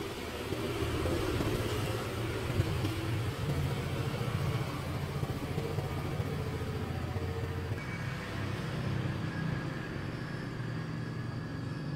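A motor vehicle's engine running steadily, a low drone that swells about a second in and then holds.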